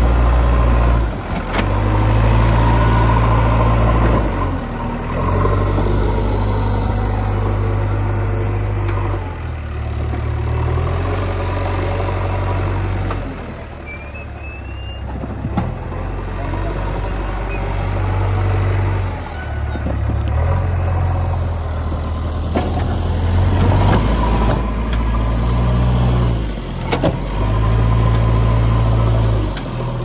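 JCB 3DX backhoe loader's diesel engine running hard while the front loader works, revving up in repeated surges of a few seconds and dropping back in between as the bucket digs and lifts soil.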